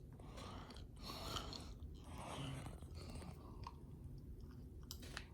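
A person chewing close to the microphone, in soft irregular bursts about a second apart, with a few small clicks near the end.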